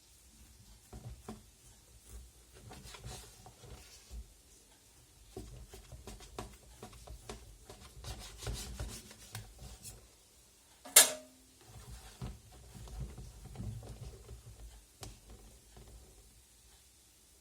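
Kitchen utensils being handled: soft rubbing and scraping with scattered light knocks, and one sharp clink about eleven seconds in.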